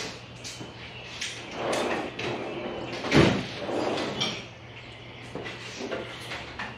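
Metal tool chest drawers sliding open and shut, with tools rattling inside as someone rummages through them. The loudest clatter comes about three seconds in.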